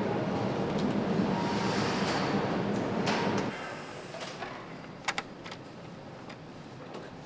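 Motorcycle assembly-line factory ambience: a steady hum of machinery and noise that drops abruptly about halfway through to a quieter background, with a quick pair of sharp clicks a little later.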